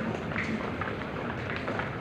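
Busy pedestrian street: many overlapping footsteps on pavement, with indistinct crowd chatter underneath.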